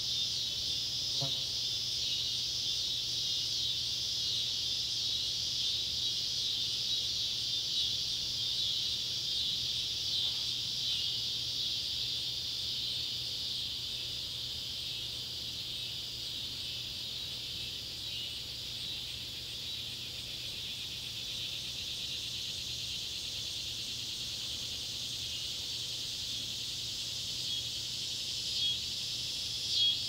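A dense chorus of scissor-grinder and swamp cicadas (Neotibicen pruinosus and Neotibicen tibicen) calling together as one steady high buzz. It eases a little midway and swells again near the end.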